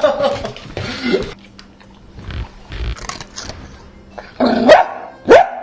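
Dachshund barking, with two loud rising barks in quick succession near the end.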